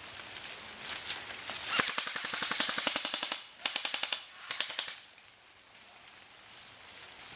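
Airsoft gun firing on full auto: a rapid, even rattle of shots in one long burst of about a second and a half, then two short bursts.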